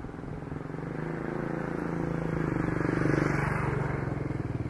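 Engine drone with a steady low hum, swelling to its loudest about three seconds in and then easing off.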